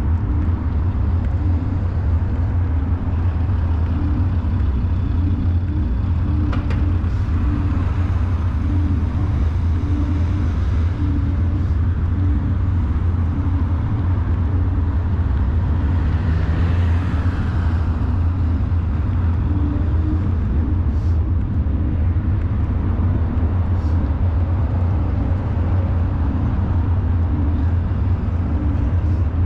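Steady low rumble of wind and road noise from riding a bicycle along a cycle lane, with motor traffic running on the road alongside. One vehicle passes more loudly about seventeen seconds in, rising and fading over a couple of seconds.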